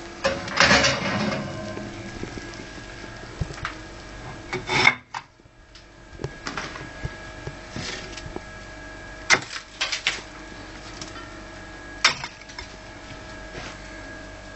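Handling noises of a glass pie dish being lifted out of an oven and set down on a stovetop: a long rustle near the start, then a few short knocks and clinks, over a steady hum.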